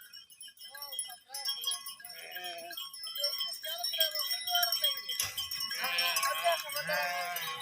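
A herd of sheep and goats bleating, many overlapping calls that grow denser about halfway through, over the steady jingle of animal bells. One sharp click comes just past the middle.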